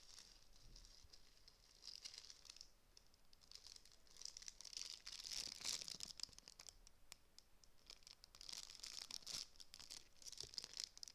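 Plastic packaging being crinkled and torn open by hand, in several crackly bouts with short pauses between them.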